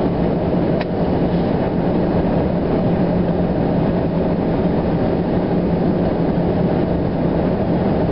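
Steady engine and road noise inside a vehicle's cabin at highway speed, with a constant low hum. A single faint click just under a second in.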